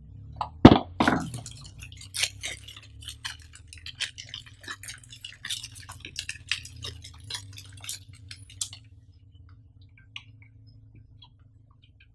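A few hollow knocks as a moulded pulp-cardboard tray is set down on a table, then crisp crinkling and crackling of a thin plastic wrap as a Wi-Fi range extender is unwrapped by hand, dying away about nine seconds in.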